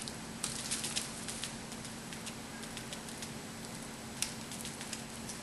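A measuring spoon scooping spice powder from a bag and tipping it into a small metal bowl: light scattered clicks and rustles, with a sharper click about four seconds in.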